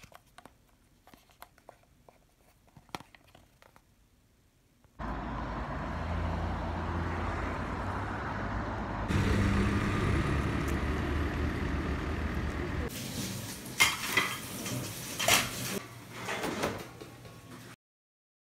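Faint clicks of plastic cream tubes being handled. About five seconds in, outdoor street noise starts suddenly: a steady low traffic rumble, with a run of sharp knocks and clicks near the end before it cuts off.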